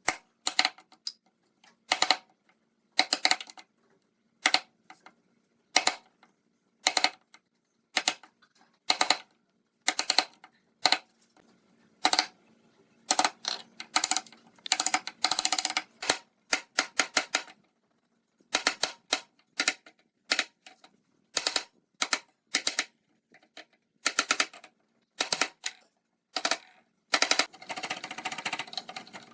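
Irregular series of short, sharp knocks and taps from woodworking, some in quick clusters and a few drawn out a little longer, with short silent gaps between them.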